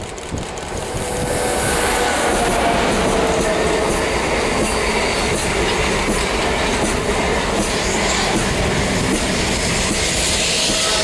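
Renfe high-speed Talgo train passing close at speed: the rush swells over the first two seconds as the train arrives, then holds loud and steady, with the wheels clattering over the rails as the coaches go by.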